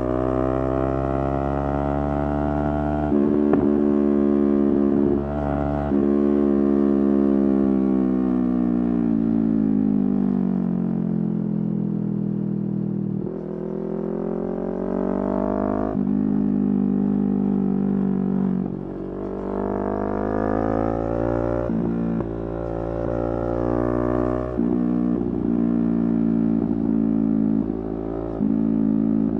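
Yamaha R3's parallel-twin engine under way, its note climbing and dropping with several abrupt breaks at gear changes. About six to thirteen seconds in the revs fall steadily as it slows, then pull back up again.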